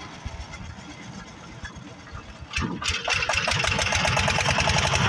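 Single-cylinder diesel engine of a two-wheel power tiller chugging as it hauls a loaded trolley. About three seconds in it gets louder, turning into a fast, even knocking.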